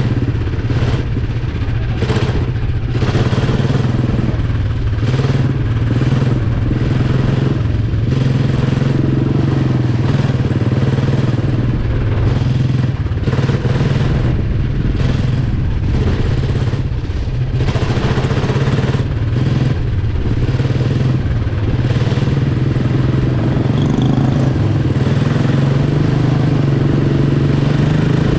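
Single-cylinder Briggs & Stratton Animal four-stroke kart engine running hard at racing speed, heard from on board the caged kart, its note wavering slightly as the throttle comes off and back on through the turns.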